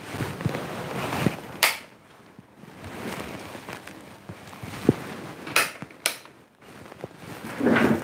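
Handling and movement noise: three sharp clicks and several small knocks, with rustling in between and a louder rustle near the end, as a person shifts in a chair and handles the recording phone.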